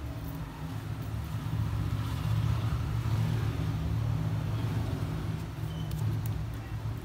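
A steady low rumble that swells slightly about two seconds in, with a few faint light clicks near the end.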